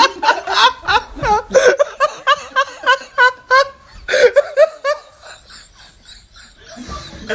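Loud laughter in quick repeated pulses, about four a second, easing off after about five seconds and picking up again near the end.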